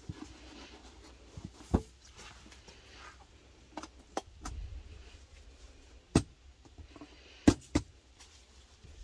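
Scattered sharp knocks and taps as a metal cake tin is carried and set down on a table, with footsteps on paving; the loudest are two knocks close together near the end.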